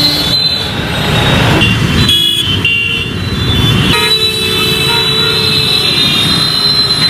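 City road traffic: vehicles passing with horns honking.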